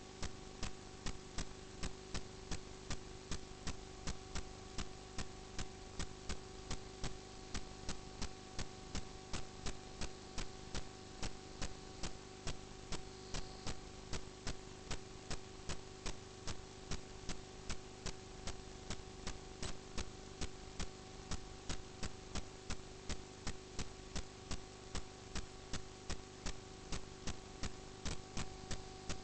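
Steady electrical hum with an even ticking, about two and a half ticks a second.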